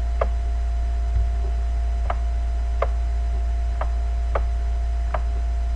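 Steady low electrical mains hum, with about seven sharp, irregularly spaced clicks of a stylus tapping on a writing tablet as an equation is handwritten.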